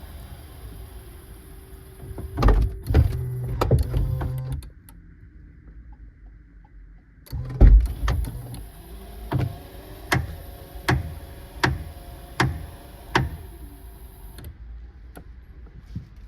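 Power rear liftgate motor of a 2016 Subaru Outback running with a clicking fault: the motor hums briefly, stops, then runs again for about seven seconds with a sharp click repeating roughly every three quarters of a second.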